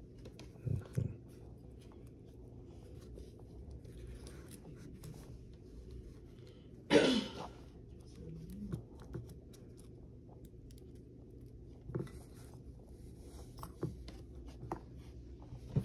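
Small pistol parts being handled and clicked together on a mat: light clicks and rustling, with two quick knocks about a second in and one louder, sharper sound about seven seconds in.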